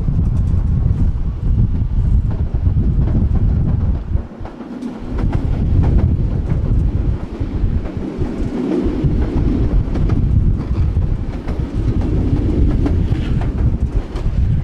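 Tram running along its track: a steady low rumble of wheels on rail, with scattered clicks and knocks over joints. The rumble eases briefly twice.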